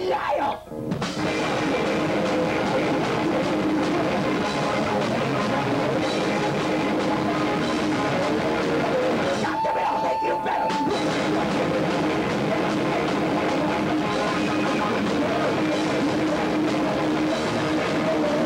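Live rock band playing loud with distorted electric guitar and drum kit. The music breaks off briefly about half a second in, and again near the middle, where a single high note holds for about a second before the full band comes back in.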